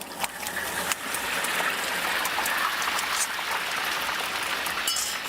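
Stinky tofu deep-frying in hot oil, a steady sizzle with a few light clicks.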